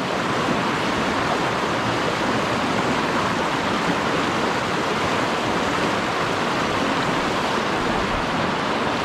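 Fast mountain river rushing steadily over rocky rapids.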